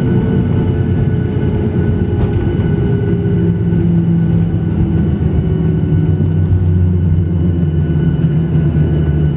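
Loud, steady cabin noise of an airliner just after touchdown: the low rumble of engines and wheels, with a tone slowly falling in pitch over the first few seconds and a strong low hum coming in about three seconds in.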